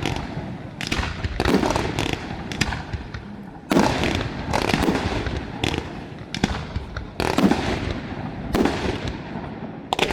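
Fireworks display: shells bursting one after another in a rapid series of sharp bangs, roughly one to two a second, with rumble and crackle between them.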